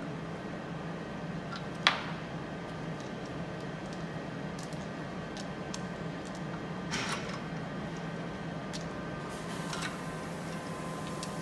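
Short squirts from a hand trigger spray bottle at the wheel, about seven seconds in and again near the end, over a steady low workshop hum. A single sharp click about two seconds in is the loudest sound.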